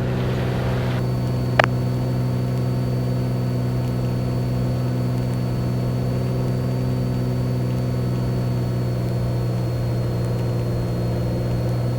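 Beechcraft Bonanza's six-cylinder piston engine and propeller droning steadily, heard inside the cabin on final approach with full flaps set. A brief hiss in the first second and a single sharp click at about one and a half seconds.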